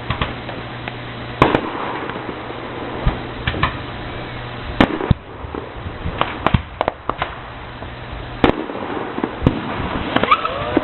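Fireworks display going off: irregular sharp bangs and crackles over a constant background rumble, the loudest bangs about a second and a half in, near five seconds, and a little past eight seconds.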